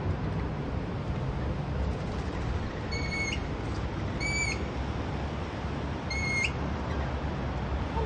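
Lorikeet giving three short whistled calls a second or two apart, each a level note that flicks upward at its end, over a steady low rumble.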